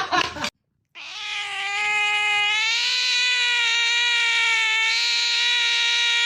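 A cat's long, unbroken yowl. It holds a steady pitch for about six seconds, with a slight rise a couple of seconds in.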